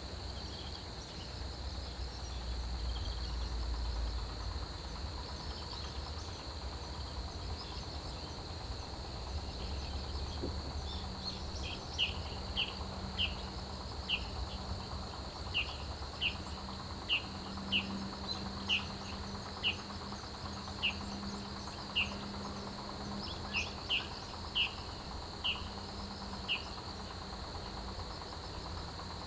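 Autumn field insects (crickets and other grass insects) trilling steadily in a high-pitched chorus. From about twelve seconds in, a nearer insect adds short sharp chirps, roughly one a second, that stand out above the chorus before stopping near the end.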